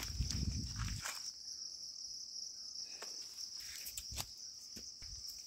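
Insects trilling steadily at a high pitch, with a low rumble in the first second and a few sharp clicks or knocks scattered through the rest.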